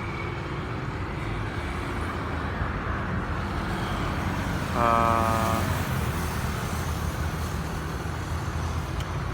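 Steady road traffic noise, a continuous low rumble of passing vehicles. A short pitched sound, about half a second long, stands out about five seconds in.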